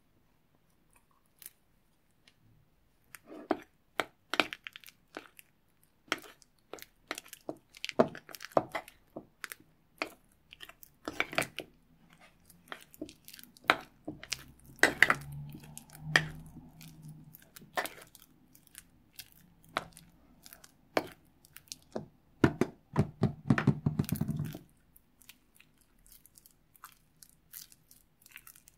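Thick slime being stirred with a metal spoon in a plastic bowl and then worked by hand, giving irregular sticky crackles and small pops. It starts a few seconds in and is densest shortly before it thins out near the end.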